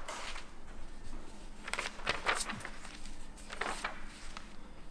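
Packaging and paper being handled: three short bursts of rustling and crinkling, about two seconds apart.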